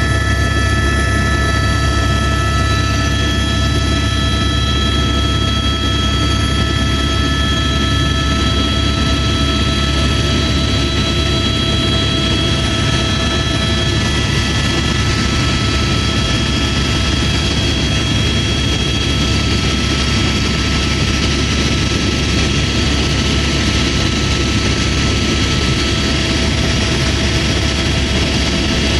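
Helicopter running at a steady, loud level: a constant low rotor drone under a turbine whine made of several steady high tones.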